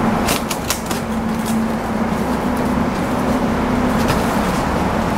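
Scissors snipping and hands handling a cardboard parcel box: a few short, sharp clicks and rustles, several in the first second and one about four seconds in, over a steady background hum with a low drone.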